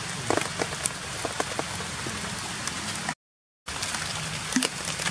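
Rain falling on forest leaves, a steady hiss with scattered drips tapping. The sound drops out completely for about half a second just past the middle.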